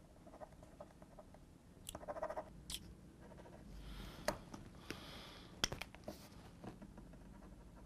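Quiet desk sounds: paper being handled and a correction pen scratching and clicking against a sheet of paper, in short scattered strokes.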